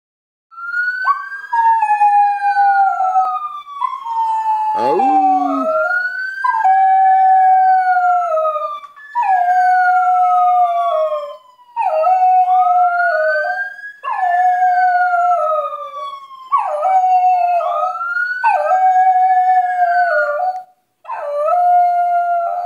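A dog howls along to a wailing ambulance siren. The siren slowly rises and falls every few seconds. The dog's howls are long, held notes that drop in pitch at the end, repeated with short breaks between them.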